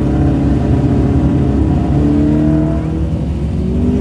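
Drag-racing car engine accelerating hard, its pitch climbing steadily.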